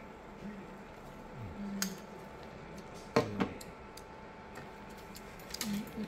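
Metal spoons and a ladle clinking and scraping against a stainless steel pot of fish stew, a few scattered clinks with one sharper knock a little past halfway.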